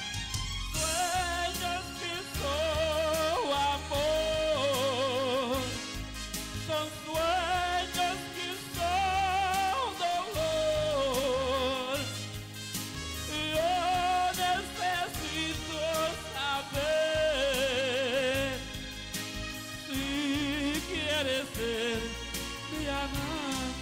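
Karaoke performance of a Spanish-language romantic ballad: a lead melody of long held notes with wide vibrato and small glides over a backing track with a steady bass beat.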